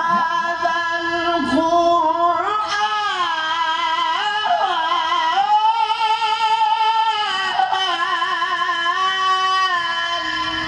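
A male qari reciting the Quran in the melodic tilawah style, his voice amplified through a handheld microphone. He sings one long ornamented phrase of held notes with wavering vibrato and melodic turns, ending near the end.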